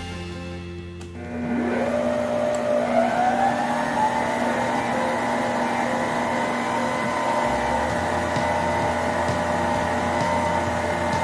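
Electrolux EKM3407R stand mixer's motor switched up to second speed. A click comes about a second in, then the motor's whine rises in pitch over about two seconds and settles into a steady, loud run.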